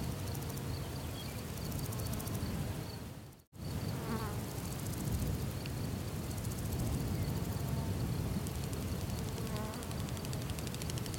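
Buzzing flies and other insects over a steady low outdoor rumble, with a thin continuous high buzz; the sound cuts out completely for a moment about three and a half seconds in.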